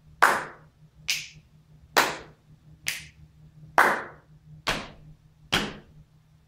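Body-percussion hand claps and strokes in a steady beat, about one every second, seven in all; the second and fourth are thinner and brighter than the rest.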